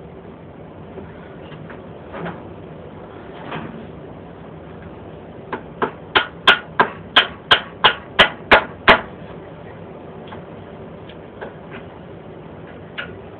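About a dozen sharp hammer blows in a quick, even run of roughly three a second, a few seconds in, with a few lighter knocks and clanks before and after, during work on the tiller's wheel.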